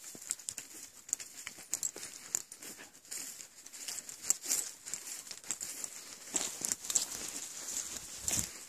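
Walking footsteps rustling and crackling through dry fallen leaves and moss, an irregular run of small crunches.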